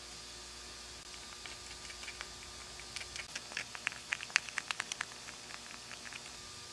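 Wooden stir stick clicking and scraping against a small plastic cup while mixing epoxy: a run of quick, irregular ticks, busiest and loudest in the middle.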